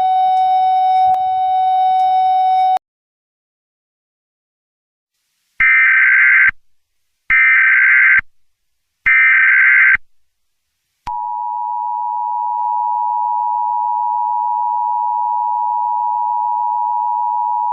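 A steady tone cuts off about three seconds in. After a pause, three short Emergency Alert System SAME header data bursts sound about a second apart, and then the EAS two-tone attention signal (853 and 960 Hz together) comes on and holds steady.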